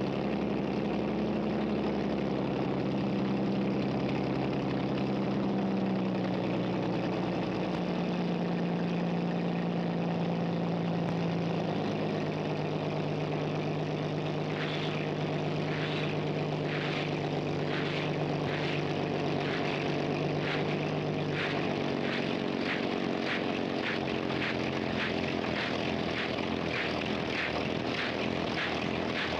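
Engine of the 1929 Sky Car helicopter running steadily, its pitch stepping a few times. From about halfway, a regular beat of a little more than one stroke a second rises over it.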